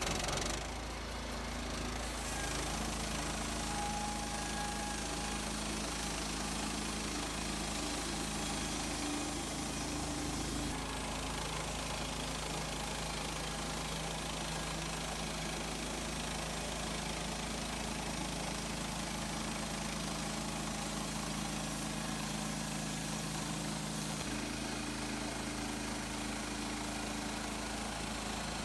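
Gas engine of a Woodland Mills HM130 Max portable bandsaw mill running steadily, its note shifting slightly a few times.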